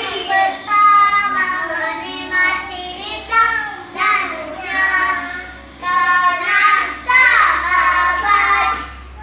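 Young children singing a Malay-language pop song in high voices, with held notes.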